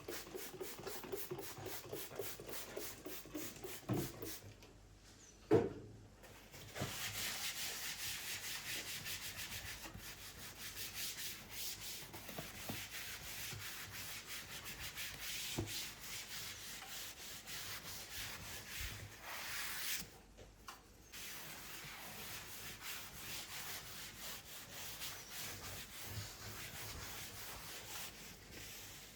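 Rapid, rhythmic rubbing strokes, like scrubbing or grating a surface by hand, running steadily with a short break about twenty seconds in. A single knock comes about five seconds in, before the strokes start.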